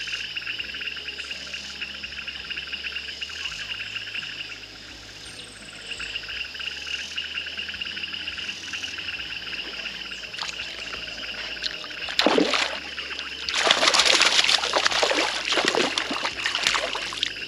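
Steady high insect chorus. About twelve seconds in, a hooked palometa (piranha) splashes at the surface beside the kayak. From about a second later it thrashes in the water almost to the end, the loudest sound here.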